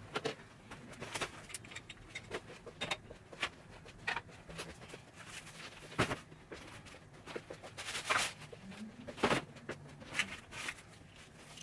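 Scattered clicks, knocks and rustling of household items being handled during tidying: clothes rustling and objects and plastic storage boxes being set down, with the loudest knocks about six and nine seconds in.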